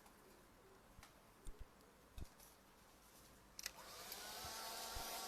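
A few light handling clicks, then a switch click about three and a half seconds in as a hair dryer starts up, its whine rising to a steady blowing hum. It is drying the freshly brushed second coat of paint.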